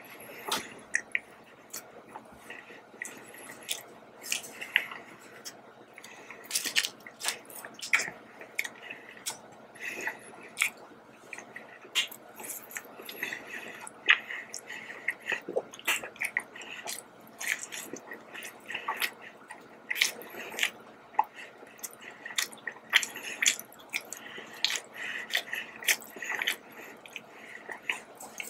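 Close-up chewing of a soft yeast donut: the mouth working the dough, with frequent irregular short mouth clicks.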